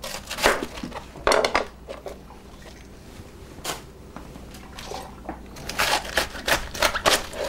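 Kitchen knife knocking and tapping against a plastic cutting board while a red cabbage is trimmed and handled: a few scattered knocks, one as the knife is set down on the board, then a quicker run of taps near the end.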